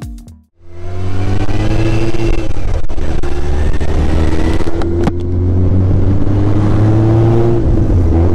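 Yamaha Fazer 600's inline-four engine under way, heard on board. The engine note climbs slowly as it pulls, eases, climbs again and drops back near the end.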